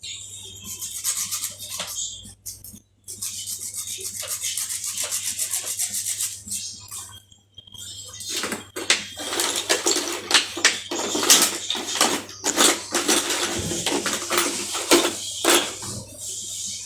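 Hand-tool work on metal: a rapid, even rasping for a few seconds, then irregular clinks and scrapes of tools and parts.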